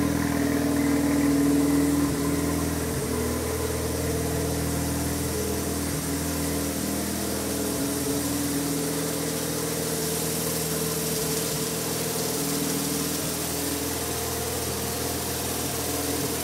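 Mazda RX-7 FD3S's twin-turbo 13B-REW twin-rotor rotary engine, breathing through a Greddy exhaust, idling steadily. It is a little louder for the first two seconds, then settles to an even idle.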